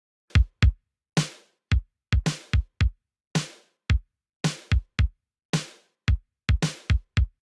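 Synthwave drum machine beat played from vintage drum machine samples: punchy kick drums with a quick downward pitch drop, alternating with snare hits that ring out briefly. The pattern stops shortly before the end.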